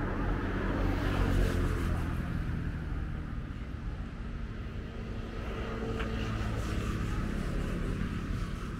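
A motor engine running, heard as a low steady hum. It is loudest about a second and a half in, then slowly fades.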